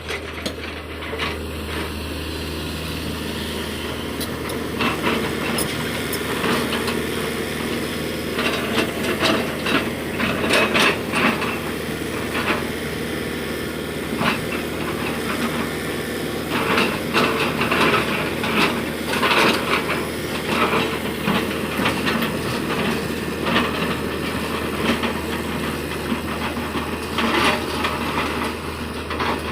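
Heavy diesel equipment running steadily at work, with repeated sharp metallic clanks and scraping from about 8 seconds in onward.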